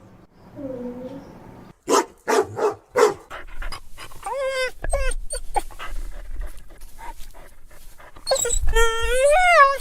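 A dog crying: a faint whine, then a quick run of short sharp yelps about two seconds in, followed by whimpering cries that bend up and down in pitch, and a longer, louder whine near the end.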